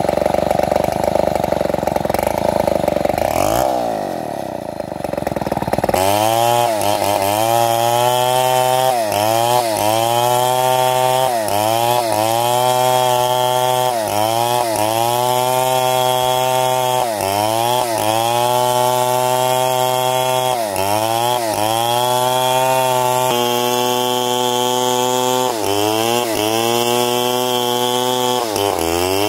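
A motor-driven wood saw cutting large timber. It starts as a steady drone with a brief falling-then-rising sweep near four seconds. After an abrupt change, the motor's pitch dips and recovers about once a second, with each dip a load as the blade bites into the wood.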